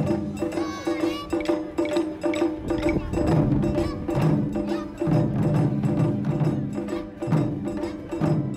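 Children's taiko ensemble playing large barrel-shaped nagado-daiko drums with wooden sticks, in a fast, driving rhythm of sharp strikes.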